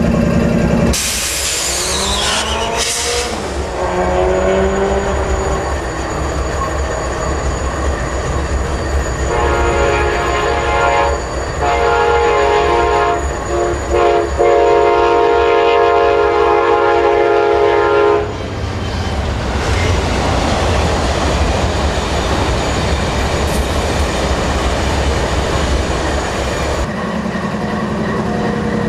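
A diesel locomotive horn sounds a chord for about nine seconds, broken by a few short gaps, over the low rumble of diesel locomotive engines. Near the start there is a brief high sound that slides in pitch.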